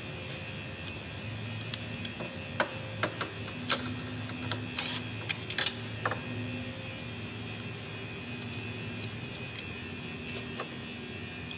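Background music with held notes, over a cluster of sharp metallic clicks and taps from a hand tool and parts being handled in the engine bay, most of them between about two and a half and six seconds in.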